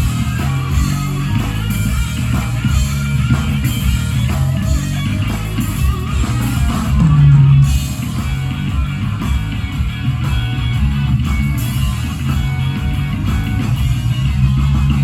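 Blues-rock band playing, with electric guitar over bass and drums. A louder low note stands out about seven seconds in.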